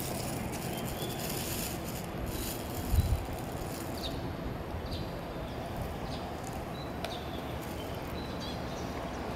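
Steady outdoor background noise with a single low thump about three seconds in and a few faint, brief high chirps later.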